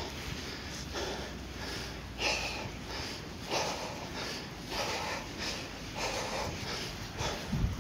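A person breathing hard and fast, panting in and out, out of breath from climbing a steep mountain slope.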